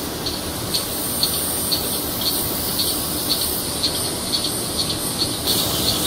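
Cicadas calling loudly in a steady high hiss, with a short chirp pulsing about twice a second.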